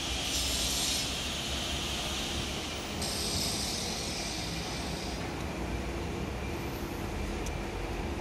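A steady, low mechanical hum with a hiss over it that swells and fades, and no distinct knocks or clicks.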